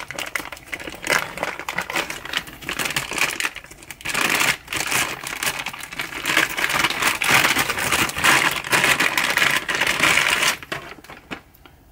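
Bubble wrap and a clear plastic bag crinkling and rustling as they are pulled off by hand, with many small crackles. Loudest and densest from about four seconds in, dying away near the end.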